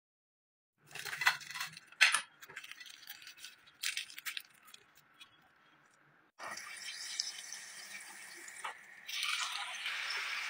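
A few sharp clicks and clinks, then a steady frying sizzle of white fish fillets in a pan, louder from about nine seconds in.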